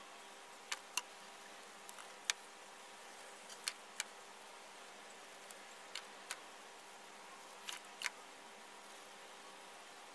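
Sharp clicks and crackles of stiff cardstock being rolled and handled, about a dozen, several in quick pairs, over a faint steady hum.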